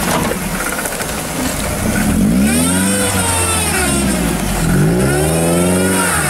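Suzuki Jimny's engine revving under load in repeated rising and falling surges as the lifted 4x4 climbs across a steep bank.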